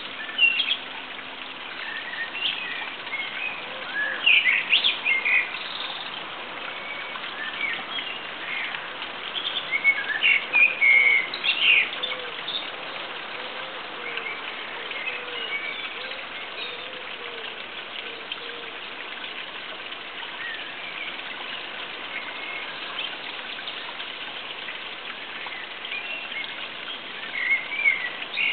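Songbirds chirping and singing in short bursts, busiest about four to six seconds in, around ten to twelve seconds in and again near the end, over a steady background hiss.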